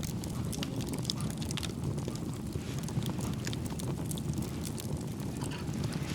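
Wood fire crackling with many small sharp pops, over a steady low rumble of wind on the microphone.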